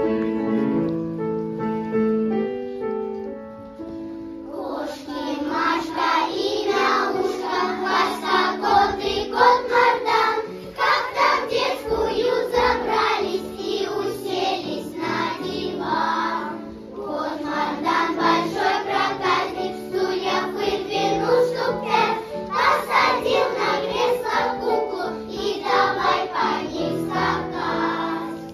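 A children's choir of girls singing a song with instrumental accompaniment. The accompaniment plays alone at first, and the voices come in about four and a half seconds in.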